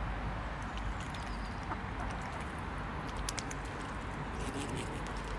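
Mute swans dabbling at the water's surface as they feed, making small wet clicks and splashes: a cluster about three seconds in and another near the end. A steady background noise runs under them.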